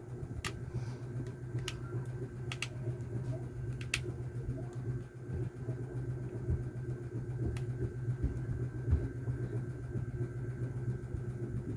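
A steady low machine hum, with a few short clicks in the first half.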